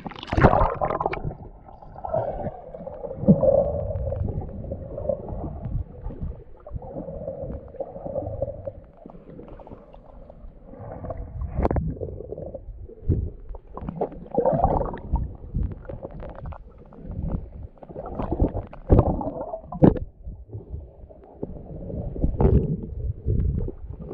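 Muffled water sloshing and gurgling, with irregular thumps and swells, heard through a camera in the water.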